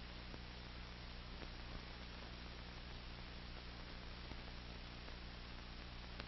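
Steady low electrical hum with hiss and a few faint clicks: the noise floor of an archival film soundtrack, with no other sound.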